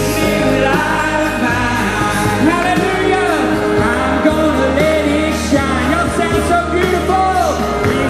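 Music: a male singer's voice over instrumental backing, loud and continuous.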